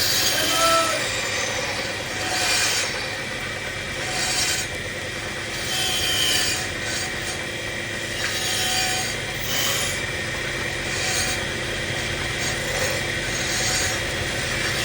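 Wood lathe running with a steady hum while something scrapes against the spinning wood in repeated strokes, about one every one to two seconds.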